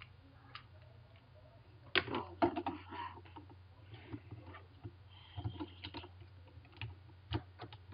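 Irregular sharp plastic clicks and taps of speed-cube pieces being handled and pushed into place while a MoFang JiaoShi MF3RS is reassembled, with a cluster of clicks about two seconds in and more between five and seven and a half seconds.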